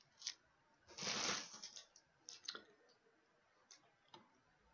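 Shrink-wrapped DVD case being handled and put down: a short rustle of the plastic wrap about a second in, then a few light clicks and taps.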